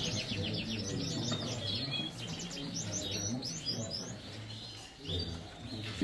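Lizard canaries singing: fast trills of rapidly repeated chirps, busiest in the first three seconds or so and thinning out after.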